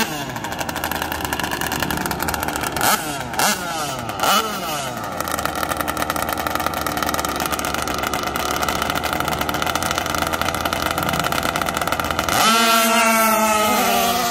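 Small gasoline engines of two 1/5-scale RC dragsters idling on the start line and blipped a few times, then opened up to full throttle about twelve seconds in as the cars launch down the drag strip, the engine note getting louder and sweeping in pitch.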